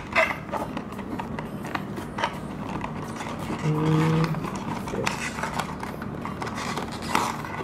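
Clear plastic blister packaging and a small cardboard box of a diecast model car being handled: scattered crinkles and clicks, over a steady low hum, with a brief pitched hum about halfway through.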